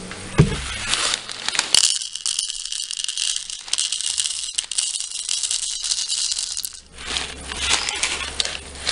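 Dry popcorn kernels rattling and pattering as they are poured from a bag into a plastic cup.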